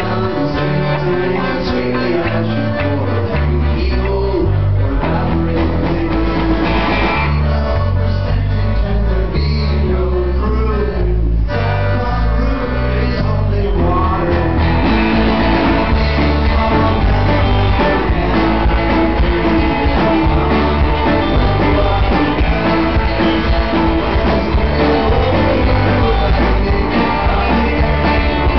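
Live rock band playing a song with accordion and guitar over a stepping bass line, a man singing lead into the microphone. The band thins out briefly about eleven seconds in, then comes back fuller.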